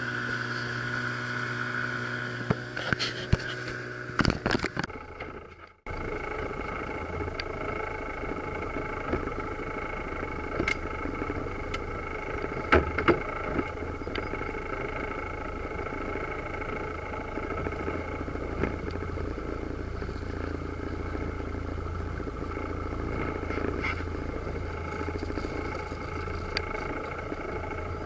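Evinrude outboard motor running with the boat under way, then, after a brief break, a steady low hum as the outboard idles for slow trolling. A few light knocks come in around the middle.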